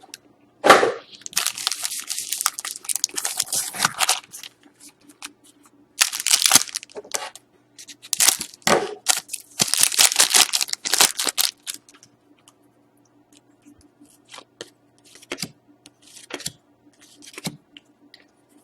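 Plastic and foil trading-card packaging being torn open and crinkled in several rasping bursts, followed by a few light clicks and taps of handling.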